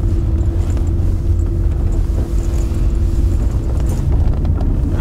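Steady low rumble of a running vehicle, with a faint steady hum above it.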